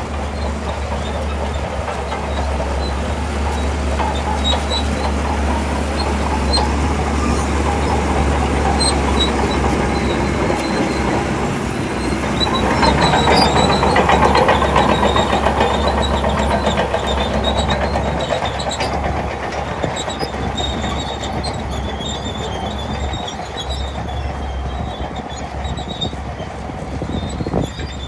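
Shantui DH17 bulldozer's diesel engine running under load with its steel tracks clanking and squealing as it pushes fill, getting louder for a few seconds about halfway through.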